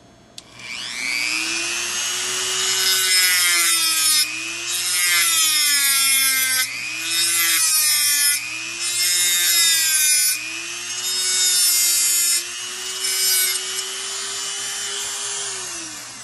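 Dremel rotary tool with a cutoff disc cutting through a slot car motor's armature shaft. Its motor whine starts about half a second in and sags each time the disc bites, with a harsh grinding hiss in several passes separated by short breaks, stopping just before the end.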